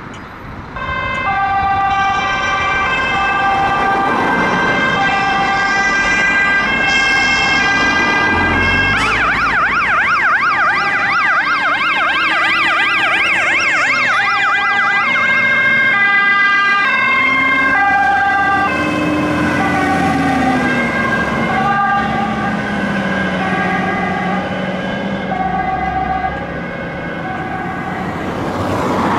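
Fire truck sirens sounding on an emergency run. Steady tones step back and forth between pitches, switch to a fast warbling yelp for several seconds in the middle, then return to the stepped tones, with the trucks' engines running underneath.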